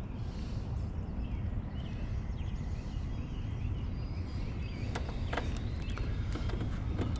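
Outdoor ambience: a low steady rumble with faint bird chirps, and a few short sharp sounds about five seconds in.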